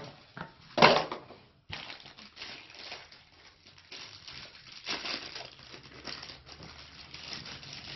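Thin plastic packaging crinkling and rustling as it is handled, with a brief louder noise a little under a second in.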